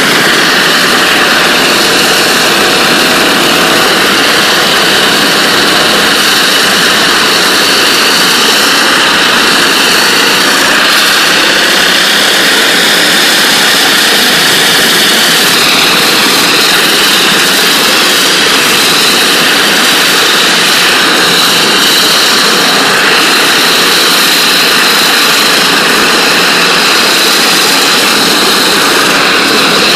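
NLB Spin Jet rotating ultra-high-pressure water-jet tool blasting a floor surface at 40,000 psi: a loud, steady hissing rush of water jets.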